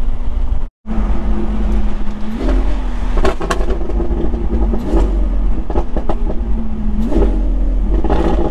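Steady drone of a vehicle's engine and road noise while driving, with a low rumble and an even engine tone that swells slightly a few times. There are a few brief clicks. The sound cuts out completely for an instant near the start.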